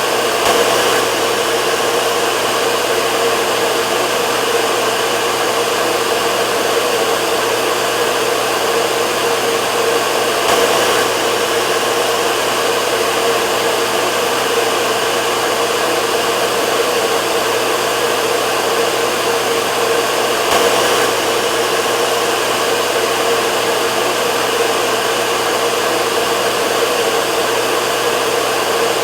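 Hair dryer running continuously: a steady rush of blown air with a constant hum underneath.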